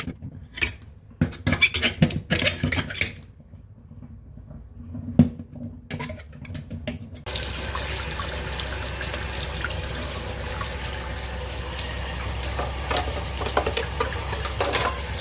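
Clatter and knocks of work in a clogged kitchen sink drain, then about seven seconds in a tap is turned on and water runs steadily into the sink.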